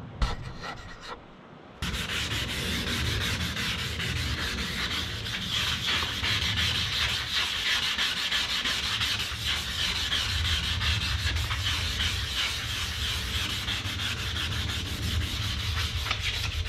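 1000-grit sandpaper rubbed by hand over a wet plastic headlight lens, a steady rough scrubbing that starts about two seconds in: the 1000-grit wet-sanding stage that takes the oxidation off the lens.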